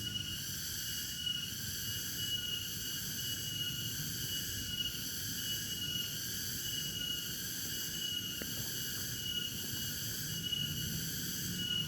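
Night insect chorus, crickets trilling steadily, with one high note pulsing about once a second, over a low rumbling background.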